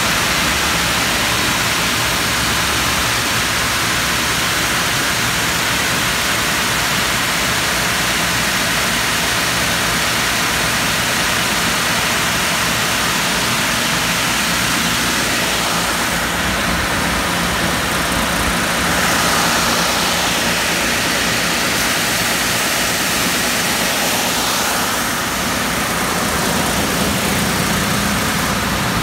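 Industrial double-sided 1300 mm wide belt sanding machine running, a steady whir of its motors and abrasive belts.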